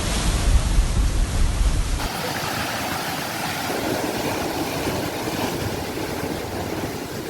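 Sea waves washing on the shore, a steady rushing noise. About two seconds in the sound cuts abruptly to a different take, and the heavy low rumble drops away.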